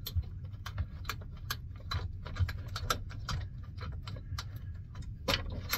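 Light, irregular metal clicks and taps, several a second, as a bolt and the guard and spacer parts are handled and the bolt is started into the threaded hole of a pinsetter's elevator frame. A steady low hum runs underneath.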